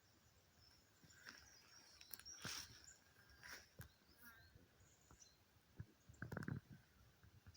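Faint open-air mountain ambience with scattered short, high bird chirps, and a brief low rumble a little over six seconds in.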